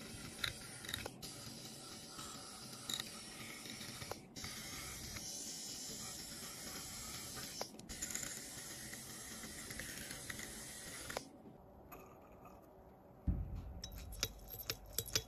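A thin metal pick scraping and ticking along the metal frame edge of an opened iPhone 12 Pro, a steady scratchy hiss with small clicks that stops about 11 seconds in. Near the end comes a low knock, then a few sharp clicks as a cotton swab works inside a small glass bottle.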